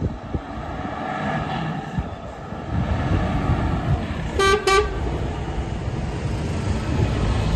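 Mercedes-Benz Actros 2545 tractor unit's diesel engine pulling through the yard, growing louder from about three seconds in as it nears. The truck's horn gives two short toots about halfway through.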